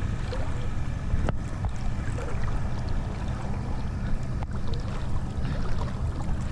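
Seawater sloshing and lapping right at the microphone, with a steady rumble of wind or water noise underneath. Two short sharp clicks, about a second in and again past four seconds.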